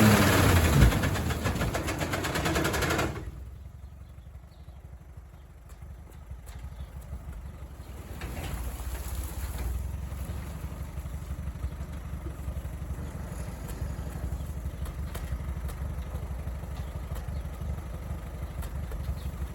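An Allis-Chalmers WD45 tractor pulling an All-Crop 72 combine, both running. About three seconds in, the loud sound drops sharply to a quieter, steady low engine rumble.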